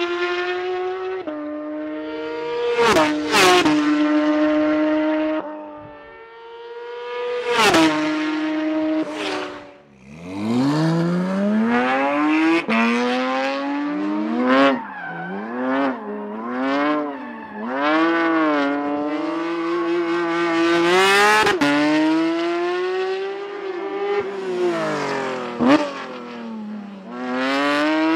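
Porsche 911 GT3 (992)'s naturally aspirated 4.0-litre flat-six running at high revs. For the first ten seconds it holds a steady high note with a few shifts as the car passes and fades; after that it revs up and down again and again while the car slides, with tyre squeal.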